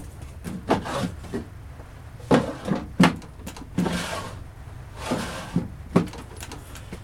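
Old toolbox drawers set in a plywood cupboard being pulled open and pushed shut several times: sliding scrapes, each ending in a knock.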